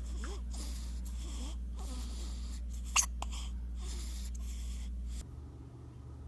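A baby breathing in short, noisy breaths, with one sharp hiccup about three seconds in. A little after five seconds the sound drops abruptly to a quieter background.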